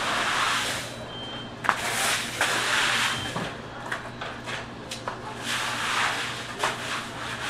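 Crushed ice being pushed and scraped across a wet floor with a long-handled broom, in repeated swishing strokes, with a few sharp knocks. A steady low hum runs underneath.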